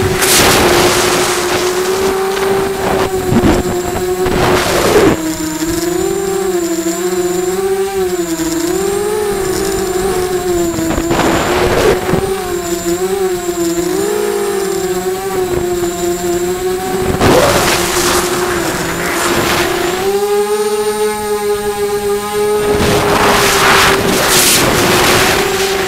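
QAV250 miniquad's brushless motors and propellers whining steadily, the pitch wavering up and down with the throttle. Several times the sound swells into a loud hiss.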